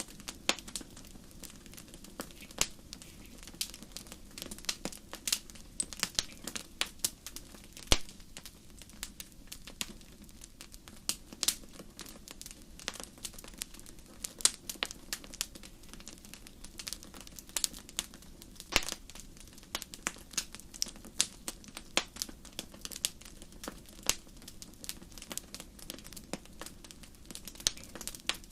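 Wood fire crackling, with irregular sharp snaps and a few louder pops over a low steady rumble.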